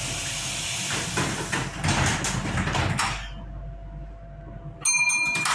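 Tyne and Wear Metro train standing still: a loud hiss of air for about three seconds, then near the end a rapid electronic beeping, the warning that the doors are closing before the train departs.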